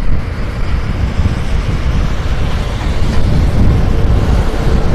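Wind rumbling on the microphone of a 110cc motorcycle riding at highway speed, over the engine and road noise. A faint steady hum comes in near the end.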